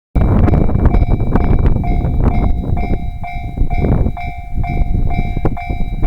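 Japanese level crossing alarm ringing its repeated electronic ding, about two strikes a second, over the heavy rumble and knocking of a train passing through the crossing. It starts abruptly just after the beginning.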